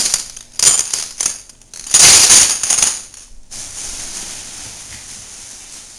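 Plastic toy domino-set pieces clattering and rustling as they are handled and pulled out, in a few noisy bursts, the loudest about two seconds in, followed by a fainter steady rustle.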